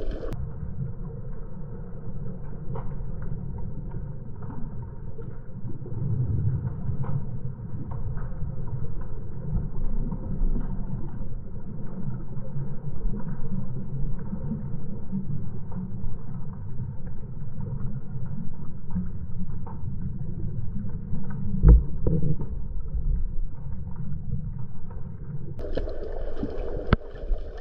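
Underwater ambience heard through a camera's housing: a steady, muffled low rumble of water with faint scattered clicks and one sharp knock a little after the middle. Near the end the sound turns brighter.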